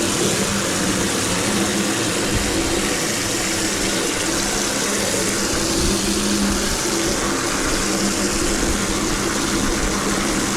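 Garden hose running full, pouring well water steadily, with a faint low hum under the rush.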